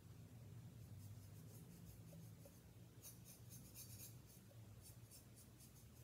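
Faint scratchy strokes of a small paintbrush working acrylic paint onto an unglazed ceramic bisque bank, in quick runs of short strokes, over a low steady hum.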